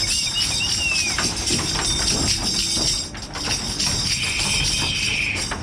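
Background music with a steady, busy percussion part.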